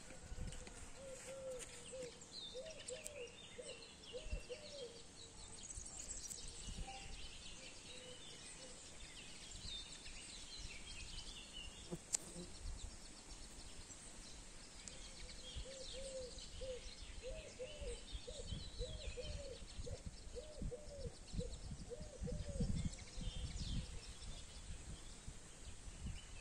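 Outdoor birdsong: small birds chirping and twittering, with a lower call repeated in quick runs of short notes about a second in and again in the second half. A low rumble swells about three quarters of the way through.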